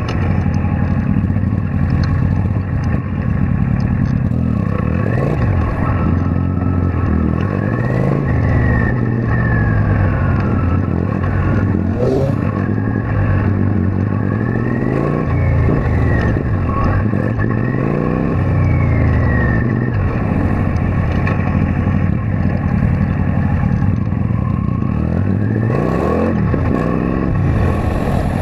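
Kawasaki Vulcan VN800 V-twin motorcycle engine running while riding in traffic, its pitch rising and falling repeatedly as the rider accelerates and eases off.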